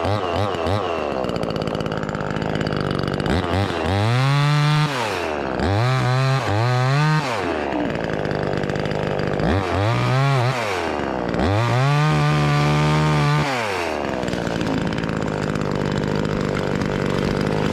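Chainsaw revving up to full throttle in five short bursts, dropping back to idle between them and settling at idle near the end, as it cuts through a tulip tree branch.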